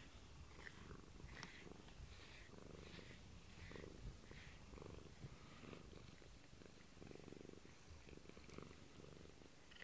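A domestic cat purring softly and steadily close up, the purr swelling and easing in a regular rhythm with its breathing while it is stroked and brushed.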